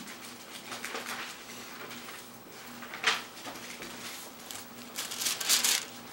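Bible pages being leafed through by hand, a series of papery rustles with a sharp louder one about three seconds in and a longer, louder rustle near the end.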